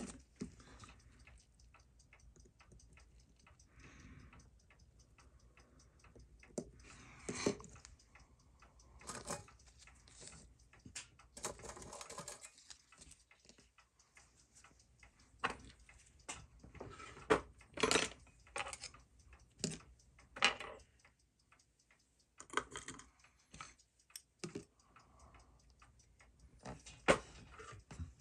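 Open Seiko 6139 automatic chronograph movement ticking fast and evenly, its balance still running. Now and then come sharper clicks and taps as metal tools touch the movement and holder.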